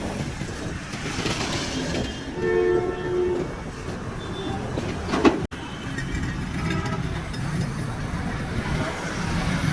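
Roadside traffic noise with a vehicle horn sounding for about a second, a second horn fainter a few seconds later.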